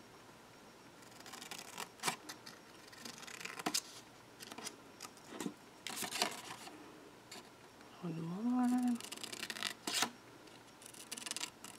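Scissors snipping short slits into patterned cardstock, a few separate cuts with paper handling and rustling between them.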